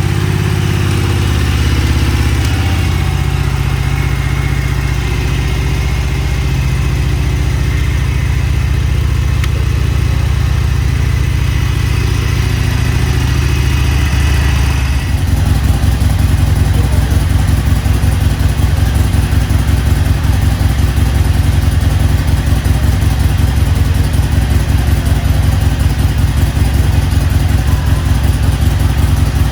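Harley-Davidson Iron 883's air-cooled V-twin engine running just after a jump start from a car battery. About halfway in it turns louder, with an even, pulsing idle beat.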